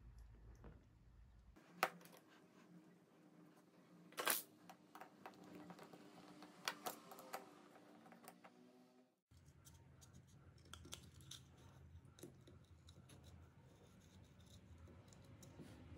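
Faint handling sounds of metal tool parts: scattered clicks and taps, with a screwdriver working a small screw into the soldering iron's metal shaft. The sharpest click comes about four seconds in.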